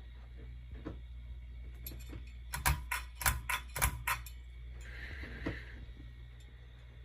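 A quick run of about seven sharp clicks over a second and a half, heard over a steady low hum, then a brief faint hiss.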